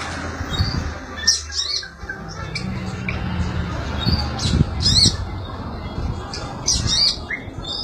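Kolibri ninja (konin) sunbird giving short, sharp high-pitched chirps in quick clusters, repeated about once a second, over a low steady background hum.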